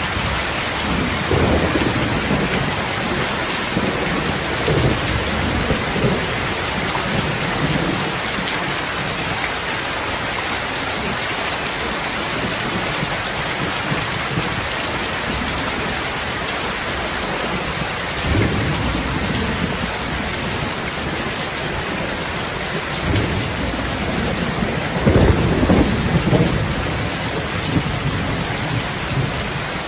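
Steady heavy rain with several low rolls of thunder, the loudest one near the end.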